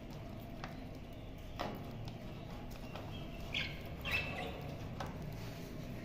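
Budgerigars giving a few short chirps around the middle, over faint clicks of a plastic seed feeder being fitted into a wire cage.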